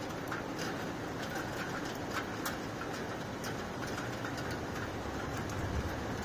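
Thunderstorm rain falling steadily, with drops ticking irregularly on a nearby surface. Near the end a low rumble of distant thunder builds.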